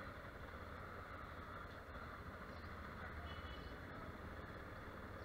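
Yamaha Ténéré 250's single-cylinder engine running at low revs, a steady low hum as the bike rolls slowly forward.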